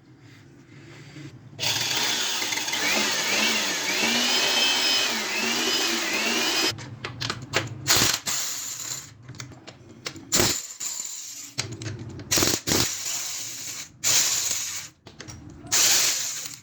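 Workshop tool noise: a power tool runs for about five seconds with a whine that rises and falls over and over, then short bursts and sharp knocks of tools on metal parts follow.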